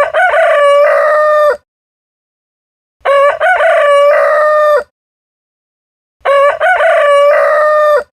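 Rooster crowing three times, about three seconds apart: each crow is a brief rising opening and then a long held note lasting about a second and a half, ending abruptly, with dead silence between crows.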